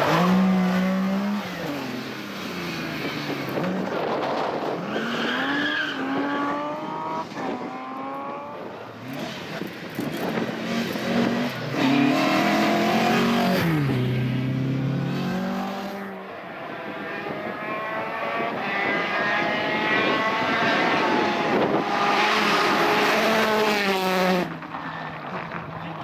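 Rally cars, among them a Citroën DS3, driven hard past the spectators one after another. The engines rev up and drop back through gear changes, so the pitch keeps rising and falling.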